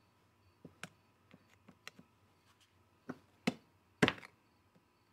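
Small screwdriver prying and twisting at the crimped metal tabs on an auxiliary coolant pump's housing: a scatter of light clicks and taps, with two louder knocks about three and a half and four seconds in.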